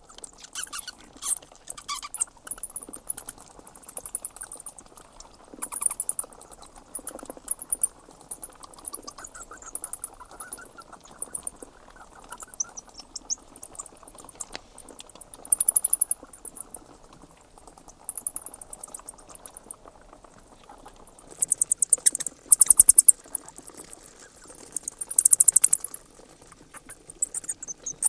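Bats squeaking in rapid, very high-pitched trains of pulses that come in bursts of a second or two, again and again, over a faint steady background hiss.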